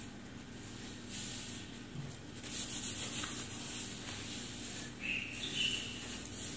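Disposable-gloved hands rubbing and squeezing wet hair as a liquid straightening lotion is worked in, a soft rubbing hiss that swells for about a second midway.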